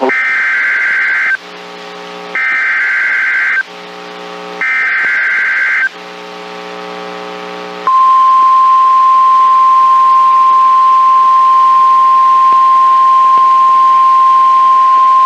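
Emergency Alert System broadcast on NOAA Weather Radio: three bursts of screechy SAME header data tones, each about a second and a half long with a buzzing hum in the gaps, then, about eight seconds in, the steady 1050 Hz weather radio warning alarm tone begins and holds, announcing a new warning.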